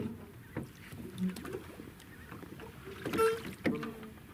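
A few light knocks and scrapes on a wooden boat as a fishing longline is hauled in by hand over the side, the loudest about three seconds in.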